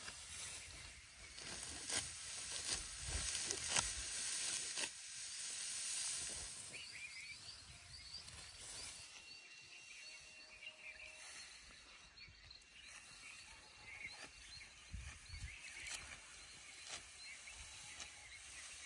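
Dry rice stalks rustling as they are cut with a sickle and handled, with a few sharp snaps in the first five seconds. The rustling then gives way to quieter field ambience with faint high chirps.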